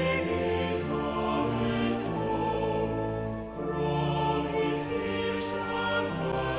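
Choir singing a hymn over sustained chordal accompaniment, the voices audibly vibrato-laden with sung consonants.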